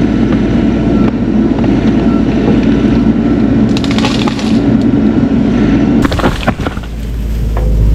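Bobcat E42 mini excavator's diesel engine working hard under load as it pulls a large tree, with scattered cracking around the middle. The engine note eases about six seconds in.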